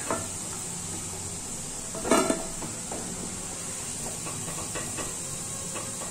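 Oil sizzling steadily as fried nikuti sweets are scooped out of the kadai with a spatula. There is a louder clatter of the spatula against the pan about two seconds in, and a few lighter knocks.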